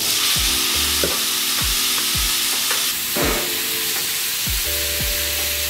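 Chopped, seasoned beef poured onto the oiled steel top of a 36-inch Blackstone griddle on medium-high heat, sizzling with a steady hiss as it lands and is spread out.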